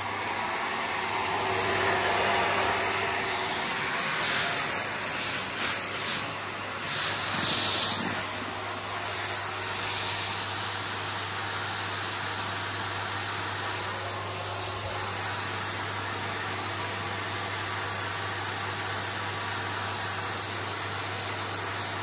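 Bagless upright vacuum cleaner switched on at the very start and running: a steady motor hum and whine under loud rushing airflow. The level rises and falls over the first ten seconds or so, then holds steady.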